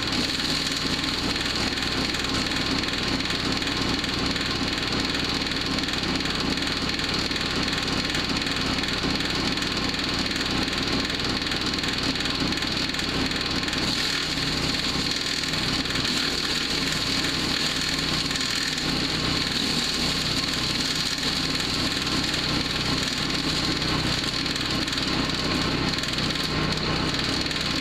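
Powerhorse wood chipper shredder's small gas engine running steadily while wood is fed through and chipped.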